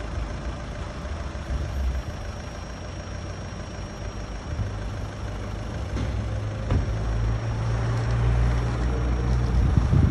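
Motor vehicle engine idling, a steady low hum that grows louder about four and a half seconds in, with a few sharp clicks in the second half.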